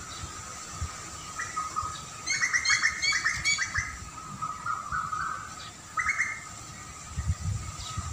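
Songbird calling: a quick run of bright chirps a couple of seconds in, then a lower note and a short call about six seconds in. Under it runs a steady faint high tone and occasional low rumbles.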